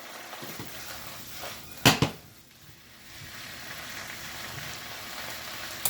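Chinese broccoli sizzling steadily in a hot pan over high heat, with one sharp knock about two seconds in and a smaller one near the end.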